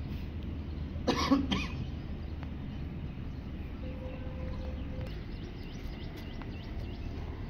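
A person coughs twice in quick succession about a second in, over a steady low background hum.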